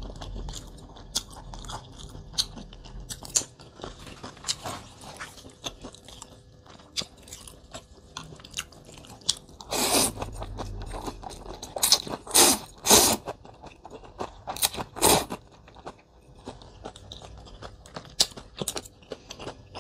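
Close-miked mouth sounds of a person eating rice-noodle soup: steady crunchy chewing, with several louder slurps of noodles between about ten and fifteen seconds in.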